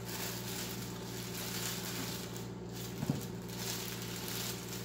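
A knife peeling a raw potato by hand, faint uneven scraping strokes, with a short knock about three seconds in, over a steady low hum.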